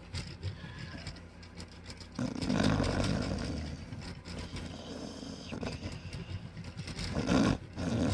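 Cloth rag rubbed back and forth along a guitar fretboard, scrubbing grime off the wood with a solvent; the rubbing gets louder about two seconds in.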